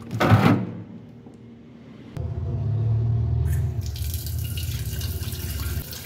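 A short thump right at the start, then from about two seconds in a kitchen tap runs water into a stainless-steel saucepan held over a steel sink, a steady low rumble with a splashing rush that grows brighter near the middle.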